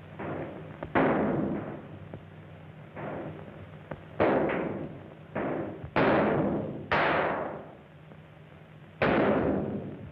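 Gunfire in a shootout: about half a dozen loud shots at irregular spacing, each trailing off briefly, over a steady low hum from an old film soundtrack.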